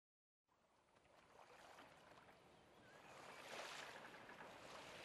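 Faint, steady wash of small waves on a sandy shore, fading in from silence about half a second in and growing a little louder.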